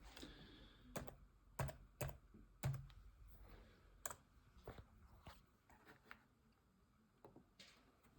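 Faint, irregular clicks and taps, about ten of them spaced unevenly, thinning out toward the end.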